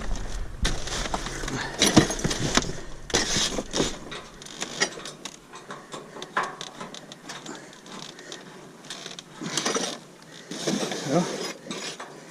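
Metal scrap grill parts clanking and scraping as they are handled and worked apart by hand, a run of sharp knocks that is busiest in the first few seconds and picks up again near the end.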